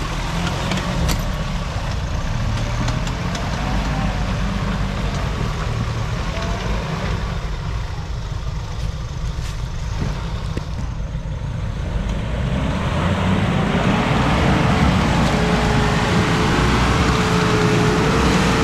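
Off-road 4x4 SUV engine working under load as the vehicle pushes through deep mud ruts. About two-thirds of the way in it revs harder with a rising whine that holds, then drops right at the end.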